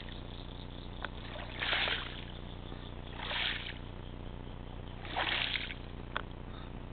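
Three short splashes of water, coming about every one and a half to two seconds, with two faint knocks between them.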